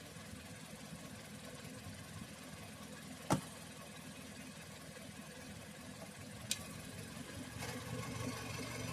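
Steady low engine hum, with two sharp clicks about three and six and a half seconds in, as fasteners of the plastic engine undercover are worked into place.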